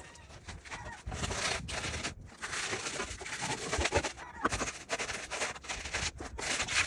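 Irregular scraping and rustling handling noises, with many short clicks and knocks.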